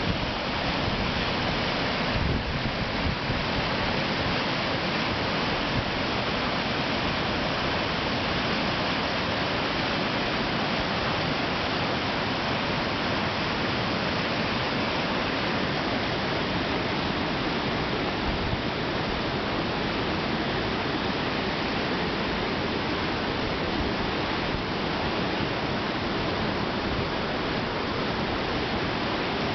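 The flooded Stillaguamish River, its high water rushing past in a steady, even rush of noise.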